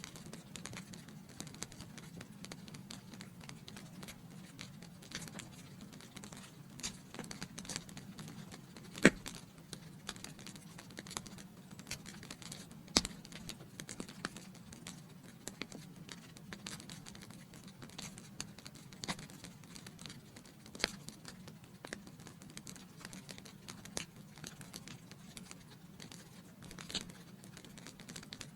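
Wood fire crackling in a fireplace: a steady low rumble of flames with scattered sharp pops and snaps, two louder pops about nine and thirteen seconds in.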